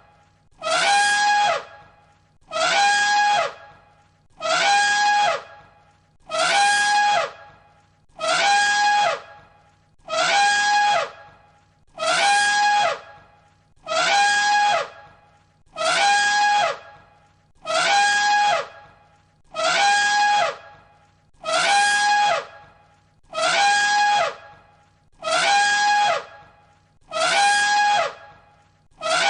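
An elephant trumpeting, the same brassy call of about a second repeated over and over, roughly once every two seconds.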